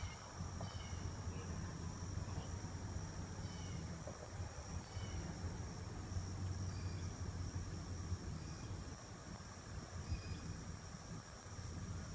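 Insects droning steadily in the woods, with short chirps repeating now and then, over a low steady hum.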